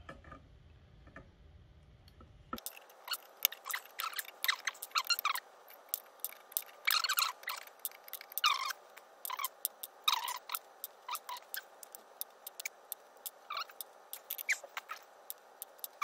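Plastic Phoenix-style pluggable terminal connectors being popped off the header pins of a Falcon pixel controller board: an irregular run of small, sharp clicks and scrapes, some in quick clusters. The clicking starts a couple of seconds in.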